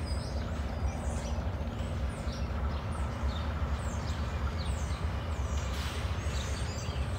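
Diesel locomotive engines running with a steady low rumble as two locomotives move slowly along the track. Small birds chirp repeatedly over it, in short high calls.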